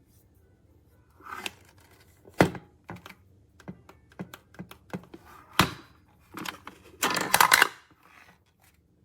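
Handling of a Hoover ONEPWR cordless stick vacuum: scattered hard plastic clicks and knocks. Two sharp knocks stand out, and a brief clattering, rustling burst comes near the end.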